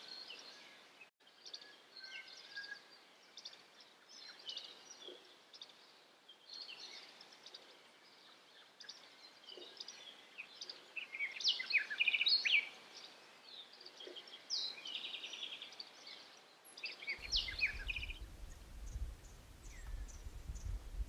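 Several wild birds chirping and trilling, with short calls and rapid chattering phrases overlapping. Near the end a steady low rumble comes in beneath fainter calls.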